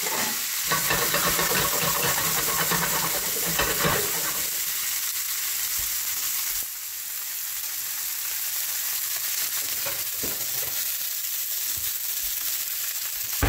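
Vegetables sizzling as they sauté in hot frying oil, stirred in the pot during the first few seconds. About halfway through the sizzle eases slightly.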